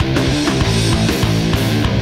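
Loud heavy rock instrumental music driven by electric guitar.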